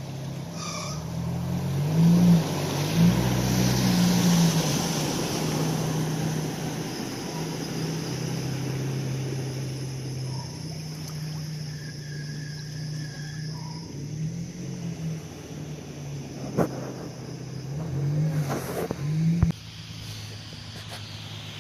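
An engine running, its pitch rising and falling several times as it speeds up and slows, with a rushing noise swelling over the first few seconds and a couple of sharp knocks near the end.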